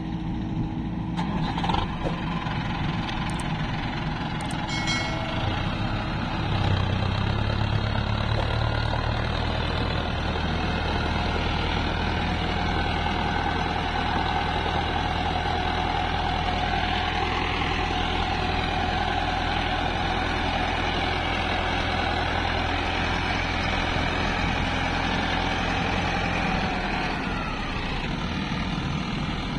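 Tractor diesel engines and an excavator running, with a few sharp knocks in the first seconds. About six seconds in, a Mahindra Arjun tractor's engine rises and settles into a steady, heavier run as it pulls a trolley loaded with mud.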